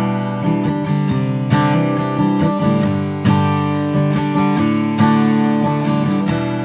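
Simon Fay Model 1 acoustic guitar, Sitka spruce top with desert ironwood back and sides, strumming chords that ring out full and deep, a new chord struck about every second.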